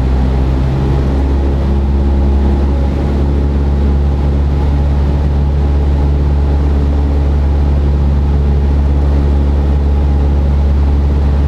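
Cessna 172's piston engine and propeller running steadily in flight, heard inside the cabin as a loud, even drone with a strong low hum.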